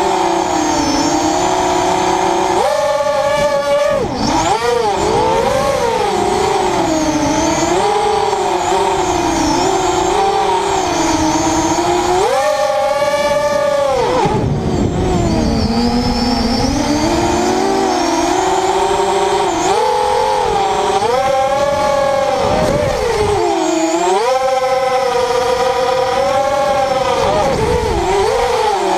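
ZMR 250 FPV racing quadcopter's brushless motors (Tiger Motor 2206 2000 kV, 6x4.5 props, 4S) whining in flight, the pitch rising and falling constantly with throttle. Several sharp climbs to a higher whine, each held a second or two, mark bursts of full throttle.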